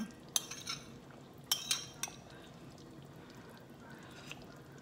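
Metal spoon scraping and clinking against a bowl of stew: a handful of short, sharp scrapes in the first two seconds, then quiet.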